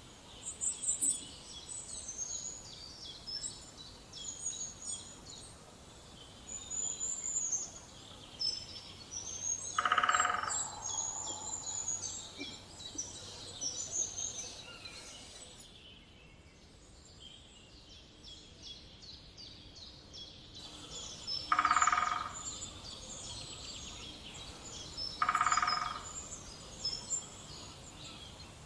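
Woodpecker drumming: three short, fast rolls of strikes on resonant wood, about ten seconds in and twice more later, over a steady chorus of small birds chirping.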